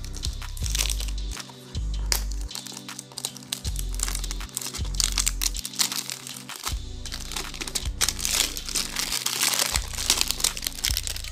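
Plastic shrink-wrap crinkling as it is peeled off a smartphone box, thickest near the end, over background music with a deep bass line.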